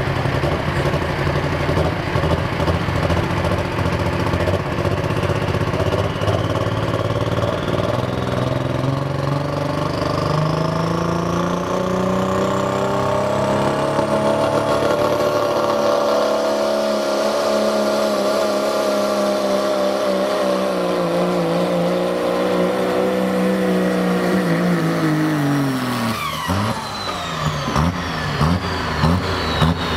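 A Dodge Ram pickup's turbocharged Cummins diesel run flat out pulling a sled: the engine climbs in revs with a high turbo whistle rising over it, holds high revs for about ten seconds, then drops off near the end as the driver lets off, the whistle falling away, with a few knocks as the truck stops.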